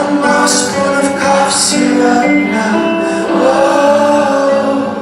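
Live rock band performing, with a male voice singing held notes over guitars.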